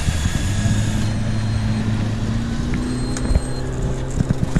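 Boat engine running with a steady low hum that rises slightly in pitch partway through, with a few sharp clicks near the end.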